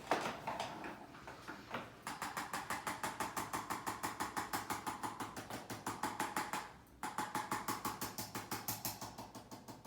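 Rapid, even mechanical tapping, about seven taps a second, starting about two seconds in and pausing briefly about seven seconds in, with a single knock at the very start.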